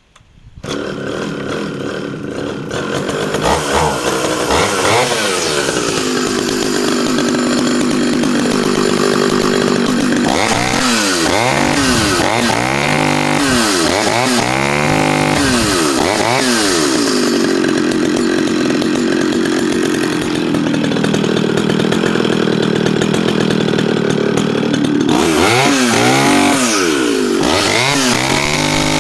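Echo CS-650EVL 65cc two-stroke chainsaw engine running, coming in loud about half a second in. It holds steady for stretches and revs up and drops back several times as the throttle is blipped, most of all in the middle and near the end.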